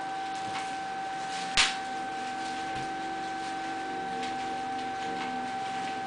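Bubble wrap being popped by an African grey parrot's beak: one sharp pop about a second and a half in, with a few faint ticks, over a steady high whine.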